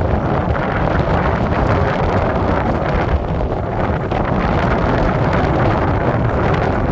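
Strong wind buffeting the microphone: a loud, steady rumble with rushing noise.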